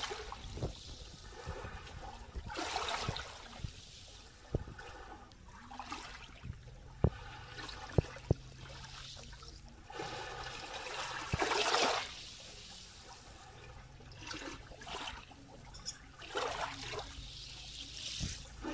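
Small waves rippling and lapping over shallow water on a sandy shore, each wash swelling and fading every few seconds, the biggest about ten to twelve seconds in. A few short sharp clicks about seven and eight seconds in.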